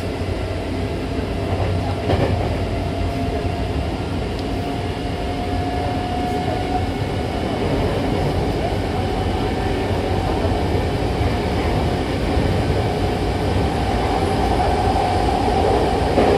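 Hankyu Takarazuka Line train running, heard from inside the car at the doors: a steady rumble of wheels on the track with a faint whine that rises slightly in pitch, and a single knock about two seconds in.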